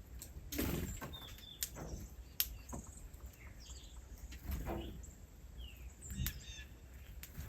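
Small birds chirping in short, scattered calls, mixed with rustling and a few sharp clicks.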